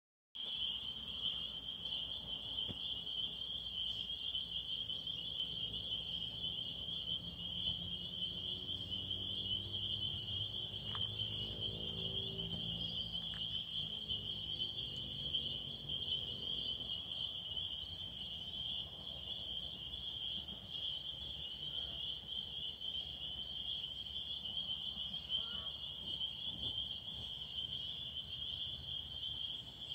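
A steady high-pitched chorus of small calling creatures, dense and unbroken throughout. Around the middle a vehicle passes, its low engine note rising and then falling away.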